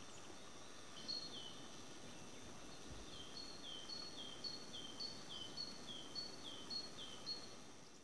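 A small songbird singing a repeated two-note phrase, a higher note then a lower falling one, about two phrases a second, with a brief phrase about a second in before the run of song. Behind it runs a faint steady hiss.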